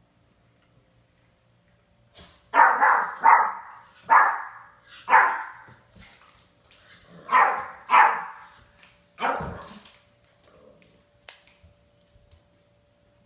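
A puppy barking at a cat eating from its food bowl: about seven barks in two runs, with a short pause between them, starting a couple of seconds in and stopping well before the end.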